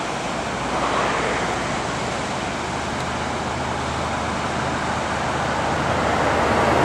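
Steady road and engine noise of a moving car, heard from inside, growing slightly louder near the end.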